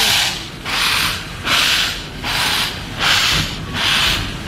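Narrow-gauge steam locomotive chuffing: a loud, regular hissing beat about twice a second, heard through an open carriage window.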